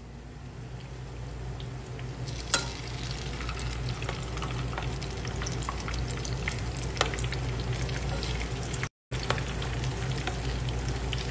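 Bala bala vegetable fritters deep-frying in a pan of oil: a steady sizzle full of small crackles, growing louder over the first few seconds, with a metal spoon moving among them and a sharp click about two and a half seconds in. The sound cuts out for a moment about nine seconds in.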